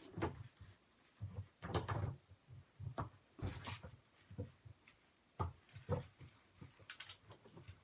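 Irregular knocks, bumps and rustling from handling and fitting together the parts of a life-size skeleton decoration, the loudest bumps coming about two seconds in and around three and a half seconds.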